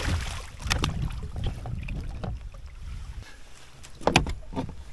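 Knocks and bumps on a kayak, with a low rumble of handling noise. There are scattered sharp knocks, the loudest about four seconds in.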